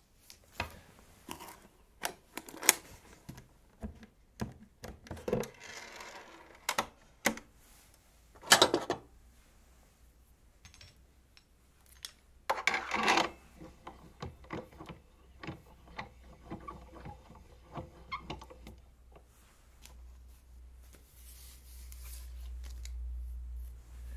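Portable wind-up gramophone being handled: scattered clicks, knocks and rubs as its case is unlatched and opened and the winding crank fitted, with two louder rustling scrapes along the way.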